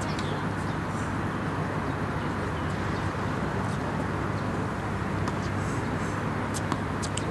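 Steady outdoor background noise with the low hum of distant city traffic, with a few faint clicks in the second half.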